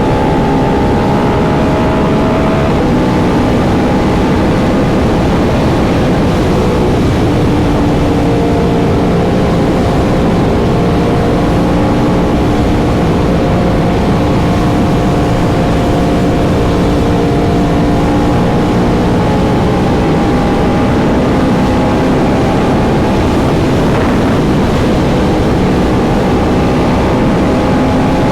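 Yamaha R1M's crossplane inline-four engine running steadily under way. Its note drops about three seconds in, then drifts slowly up and down, over a steady low rush of noise.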